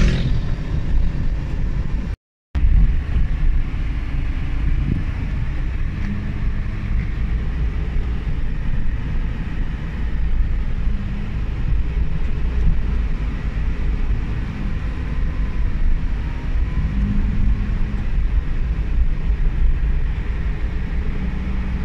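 In-cabin driving noise of a Suzuki Every Wagon: a steady low rumble from its R06A turbocharged 660 cc three-cylinder engine at light cruise, around 1,600 to 2,300 rpm, mixed with road noise. The sound cuts out completely for a moment about two seconds in.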